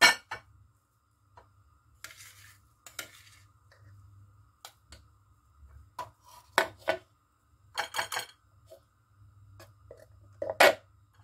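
A metal spoon scraping and knocking against a Moulinex food processor's plastic bowl as ground sardine paste is emptied out. The sound is a series of sharp clatters and knocks with a short stretch of scraping, and the loudest knock comes near the end.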